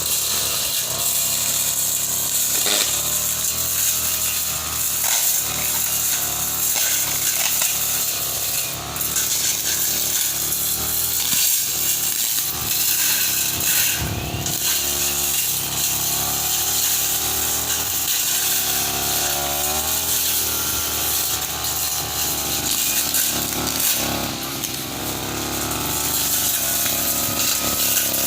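Petrol brush cutter fitted with a steel blade, running steadily, its engine speed wavering up and down.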